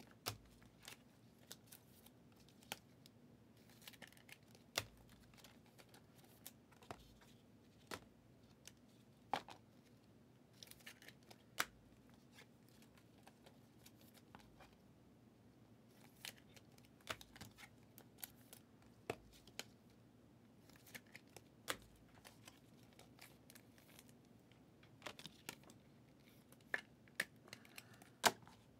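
Football trading cards handled one by one: faint, scattered sharp clicks and short rustles of card stock as the cards are slid and flipped through a stack, over a low steady hum.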